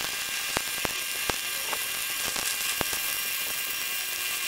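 Stick (arc) welding on a steel car rim: the steady frying crackle of the electrode arc, with a few sharp pops in the first three seconds.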